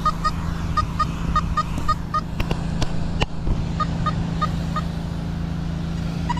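Nokta Simplex Ultra metal detector beeping as its coil passes over coins lying on the grass: quick runs of short identical tones, about five a second, in two bursts with a gap between, over a steady low hum.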